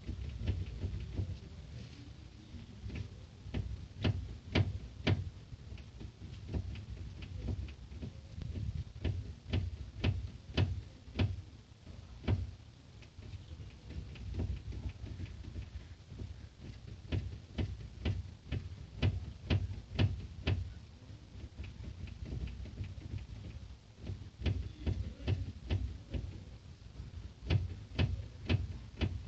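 Knocking from a Hyundai Elantra's steering: a long series of irregular short knocks over a steady low rumble, the steering fault the owner is recording.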